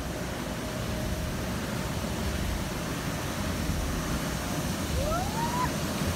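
Steady rushing drone of an inflatable bounce house's electric air blower. About five seconds in, a short rising voice sound cuts in.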